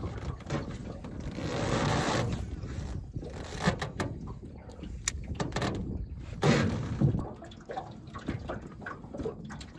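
Water sloshing against a small fishing boat, with two louder swells of noise and scattered clicks and rustles as a baitcasting rod and reel are handled and cast.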